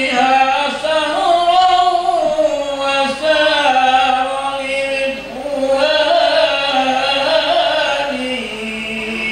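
Devotional Arabic chanting of a marhaban (praise of the Prophet) sung in long, wavering, drawn-out melodic notes, with no instruments.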